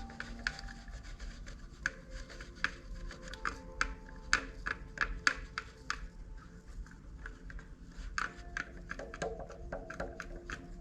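Slime from a Cra-Z-Art Nickelodeon slime kit being worked by hand, giving a dense string of sharp clicks and pops, several a second.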